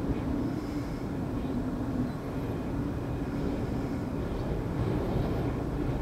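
Storm-force wind blowing steadily, a low rushing noise, with waves breaking and spraying over the rocks.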